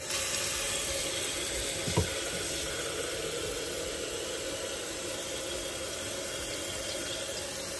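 Water running steadily from a kitchen faucet into the sink, with one short knock about two seconds in.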